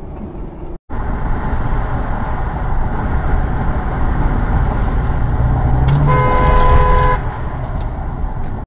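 Steady road and engine rumble of a moving vehicle heard from inside, with a car horn sounding one steady blast of about a second roughly six seconds in. The sound cuts out briefly just under a second in.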